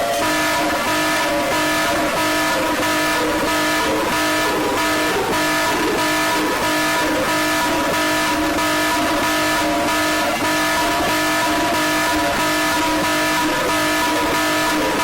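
Emergency alert alarm tone: several steady tones sounding together as a harsh, loud chord over a buzzing hiss, pulsing evenly a few times a second.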